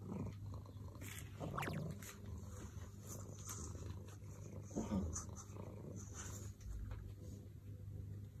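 A cat making a few short, low vocalizations: one about a second and a half in rising in pitch, another about five seconds in, over a steady low hum.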